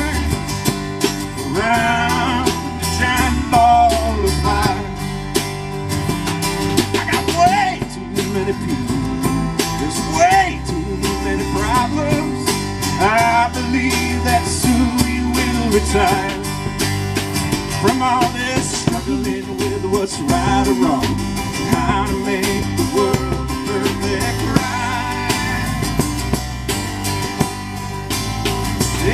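Live country-style band music: acoustic guitar, a second plucked string instrument, upright bass and a drum kit playing together, with a lead line that bends and slides in pitch over a steady low bass.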